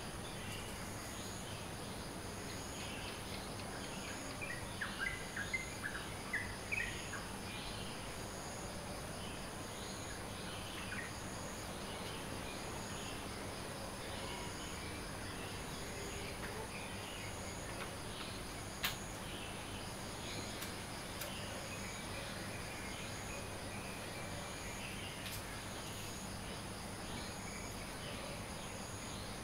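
Steady high insect trilling with a second, pulsing insect call repeating about once a second, under bird chirps: a quick run of chirps about 4 to 7 seconds in, then scattered faint bird notes. A single sharp click comes about two-thirds of the way through.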